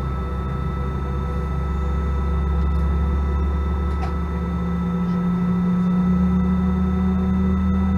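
Airbus A319 cabin noise: steady engine and air-conditioning hum with a few constant whining tones, heard from inside the cabin as the airliner taxis. The low engine note shifts and grows slightly louder about five seconds in.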